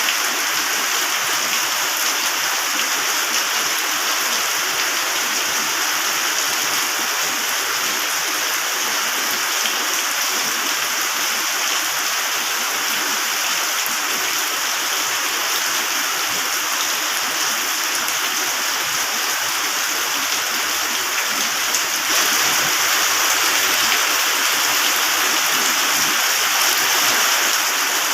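Heavy rain falling steadily, a dense even hiss with no thunder, getting slightly louder about two-thirds of the way through.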